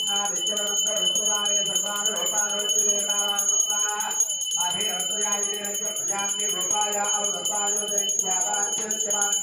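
A puja hand bell rung continuously during the lamp offering, its high ringing unbroken, under a voice chanting mantras.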